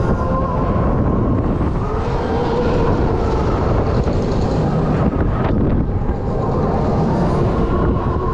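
Wind rushing over the microphone as a spinning, swinging fairground thrill ride carries the rider through the air, with a steady hum of tones underneath.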